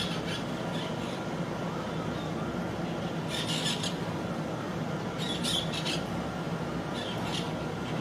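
Parakeets giving short, harsh squawking calls in a few scattered bursts, the busiest about halfway through, over a steady low background rush.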